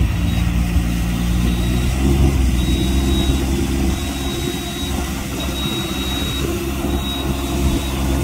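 Rice transplanter's engine running steadily as the machine plants seedlings through a flooded paddy, its note shifting slightly about two seconds in.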